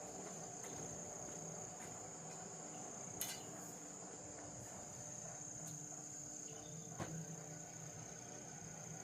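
Insects chirring steadily in one continuous high note, with two short clicks about three and seven seconds in.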